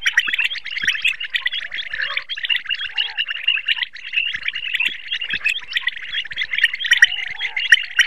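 Common quail calling, a dense run of rapid, overlapping chirping notes with no pauses and a few sharper, louder notes near the end.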